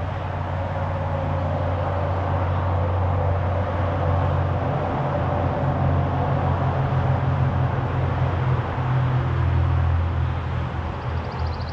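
Road traffic: a steady low rumble of passing vehicles, growing louder through the middle and easing near the end.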